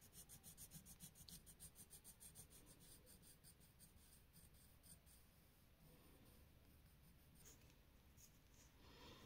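Faint pencil shading on drawing paper: a quick, even run of back-and-forth scratchy strokes that thins out to a few scattered strokes about halfway through.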